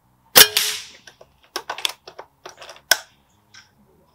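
A .177 Walther Reign PCP air rifle fires once, a sharp report about half a second in. A run of mechanical clicks and clacks follows as the side lever is worked to chamber the next pellet, ending in a sharper click near the three-second mark.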